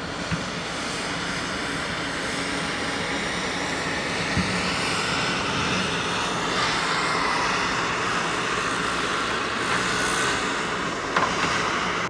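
Front-end wheel loader's diesel engine working under load as it pushes snow. It runs steadily, with a whine that comes up about halfway through and stays to near the end, and a few short knocks from the machine.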